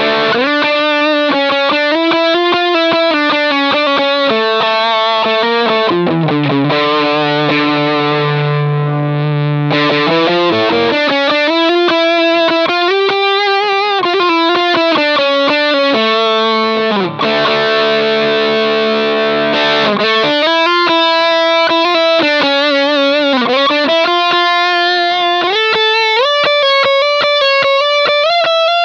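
Electric guitar played through a Sinvertek Drive N5 Plus distortion pedal: a heavily distorted melodic lead line of held, sliding notes, the pedal's Presence knob off at first. About two-thirds of the way in the tone grows brighter as the Presence is turned up.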